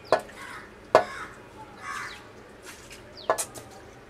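Hard pieces of boiled sea-snail shell dropping onto a stainless steel plate: three sharp clicks with a brief ring, one right at the start, one about a second in and one near three and a half seconds.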